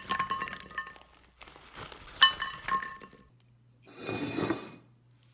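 Quick run of small glass clinks, each ringing briefly, stopping about three seconds in; a short rustle follows about a second later.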